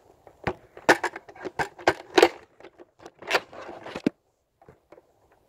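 Hard plastic clicks and clacks as a Nerf blaster is handled and its priming handle worked: a quick, uneven run of sharp clicks that stops about four seconds in.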